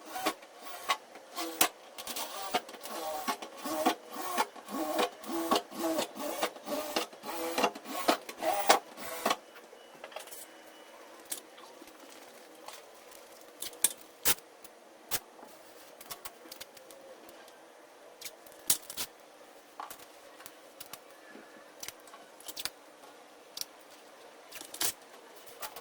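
A drill with a small bit (about 1/16 inch) running in short bursts, boring pilot holes through the van's sheet-metal wall at the window outline's reference points, with sharp clicks between bursts. After about nine seconds the drilling stops and only scattered handling clicks and knocks remain.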